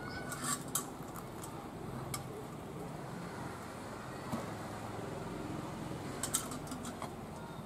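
A few light clinks and knocks as clay sap pots and a steel pot are handled in the crown of a palmyra palm, over a steady low background rumble.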